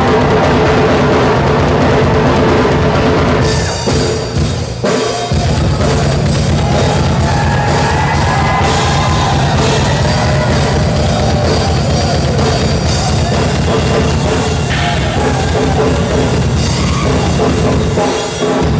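Heavy rock band playing live: a drum kit with a pounding bass drum under loud electric guitar, with a lead line bending in pitch in the middle. The band briefly drops out about four to five seconds in, then comes back in.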